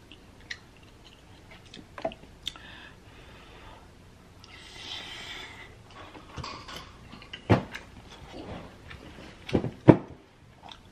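Close-miked eating of ramen noodles: soft chewing, a noisy stretch around the middle like a slurp, and a few sharp clicks near the end.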